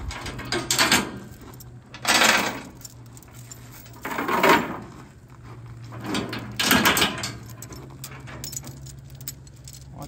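Steel tie-down chains rattling and clanking as they are pulled free from a load on a flatbed trailer and gathered up by hand, in four separate bursts.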